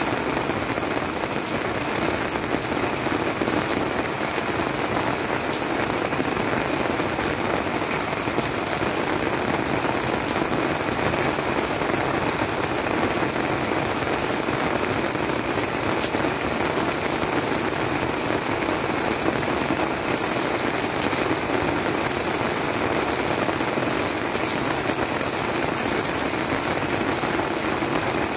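Steady rainy-season (jangma) rain falling on leafy plants, an even, unbroken patter of drops.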